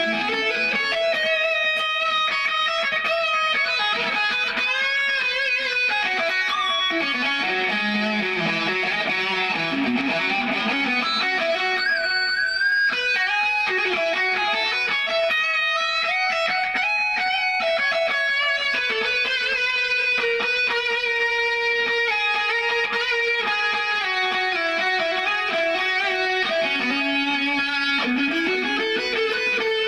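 Ibanez Jem 70V electric guitar played through a Line 6 POD HD500 into a Laney LX120R Twin combo, with Tube Screamer and Line 6 Drive overdrive, delay and spring reverb on a modelled Vox AC30: a lead line of sustained notes with bends and vibrato. The added drive gives a heavier, more saturated tone.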